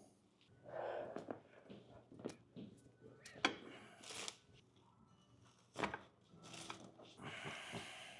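Chiropractic adjustment: rustling and shifting of the body and clothing on a treatment table, with several sharp cracks, the loudest about three and a half seconds in.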